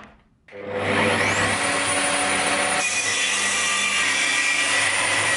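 DeWalt plunge-cut track saw: a click, then about half a second in the motor starts with a rising whine up to full speed and the saw runs on steadily, cutting along its guide rail through plywood.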